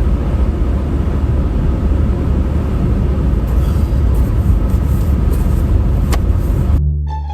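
Steady low rumble of road and engine noise inside a Chevy Cruze's cabin while driving, with a single click about six seconds in. Near the end it cuts off suddenly to plucked string music.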